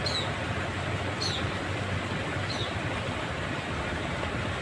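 Steady low rumble of distant city traffic, with a short, high, falling chirp, like a small bird's call, repeated a few times about a second and a bit apart.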